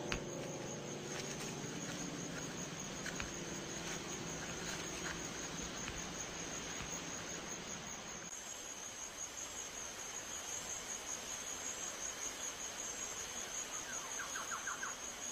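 Insects trilling: a steady high-pitched chirring over a faint hiss, pulsing more plainly in its second half, with a short run of quick chirps near the end.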